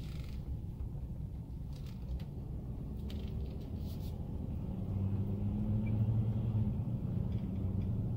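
Engine and road rumble heard inside a slowly moving vehicle, with a low engine hum that grows louder from about five seconds in.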